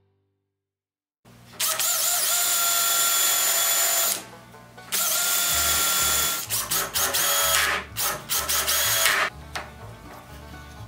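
Battery-powered cordless drill running into a wooden frame. It starts about a second in, runs steadily for about three seconds, pauses, runs again, then gives several short bursts that stop a little after nine seconds in.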